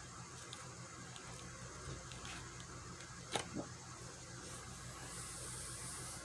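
A large book handled and shut: a few faint page ticks, then a soft slap as the book closes about three and a half seconds in, with a smaller knock just after, and a soft brushing as a hand slides over the cover near the end.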